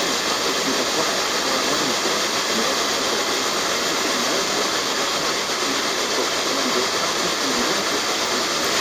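Steady radio static: the even hiss of a radio receiver with no clear signal coming through.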